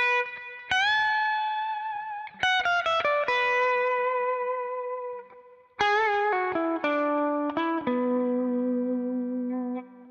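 Unaccompanied Telecaster-style electric guitar playing a single-note blues lick, with a string bend near the start. Two phrases with a short pause between them; the second steps down and ends on a long held note.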